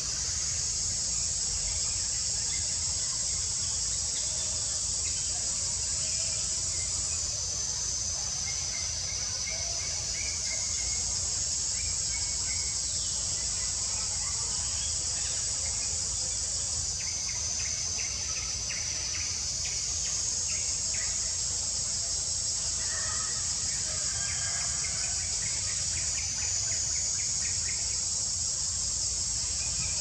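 A steady, high-pitched insect chorus that shifts slightly in pitch every few seconds, with scattered short bird chirps beneath it.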